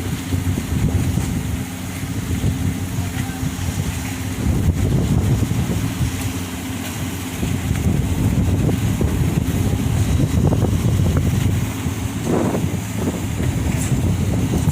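Strong wind buffeting the microphone in uneven gusts, over the low, steady hum of the ferry's engines.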